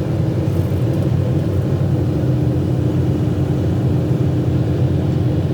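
Excavator's diesel engine running steadily with a low rumble, and a steady whine joining about two seconds in.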